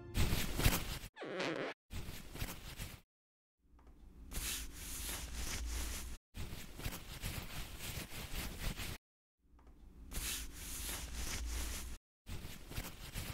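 Dubbed-on sound effect of clothing rustling as a dress is pulled off. It is a rough, noisy rustle in several separate pieces, cut off by short gaps of dead silence at about 1, 3, 6, 9 and 12 seconds in.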